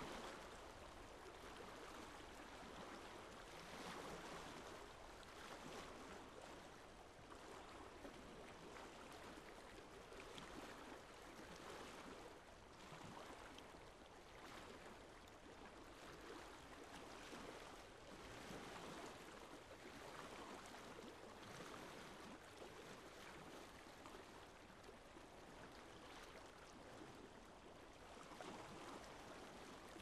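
Faint lake water lapping, a steady wash that swells and eases every couple of seconds.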